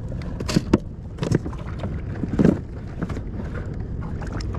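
Short knocks, thumps and rustles of gear being handled on a plastic fishing kayak, the strongest about two and a half seconds in, over a steady low rumble of wind and water.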